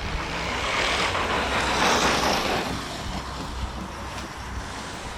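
Arrma Kraton EXB RC truck with a brushless motor being driven, its motor and tyre noise swelling as it passes close about one to two and a half seconds in, then dropping back.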